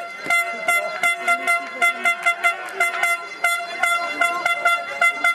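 Spectators' hand-held air horns tooting in quick repeated blasts, about four a second, on one steady pitch.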